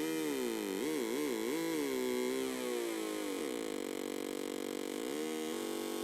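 Homemade dual Atari Punk Console (556 timer square-wave synth) droning buzzy tones, its pitch wobbling up and down several times as the knobs are turned, then sliding down and settling into a steady drone with a brief dip near the end. It is wired with its two capacitors in the wrong spots.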